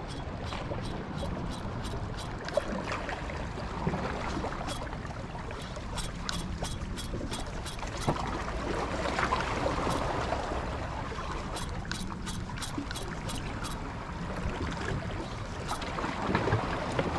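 Steady noise of water and wind at the coast, with a low rumble underneath and light ticks about two or three a second through much of it.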